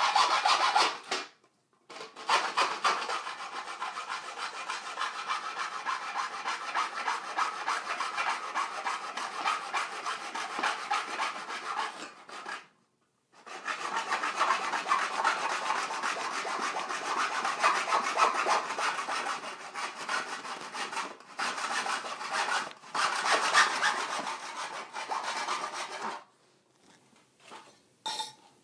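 Hacksaw cutting through an aluminum shower-door bottom track held in a miter box, in quick back-and-forth rasping strokes. The sawing breaks off briefly twice and stops near the end, with the cut not yet through.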